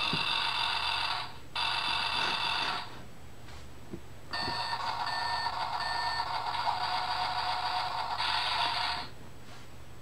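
Electronic construction sound effects from a children's sound book's button panel, played through its small, tinny speaker. Two short clips of about a second each come first, then a longer clip with a repeated beep.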